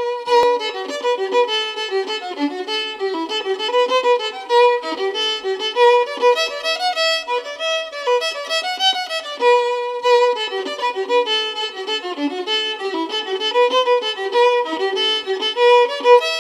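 Background music: a fiddle playing a quick melody of many short notes, with no bass underneath.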